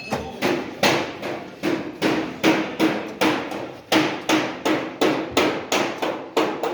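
A hammer striking repeatedly and evenly, about three blows a second, each with a short ring.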